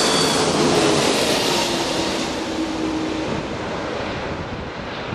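Jet engines of an Airbus A330-300 airliner running on the runway and passing by, a steady roar that slowly fades, with a high whistle early on dying away and an engine tone sliding down in pitch midway.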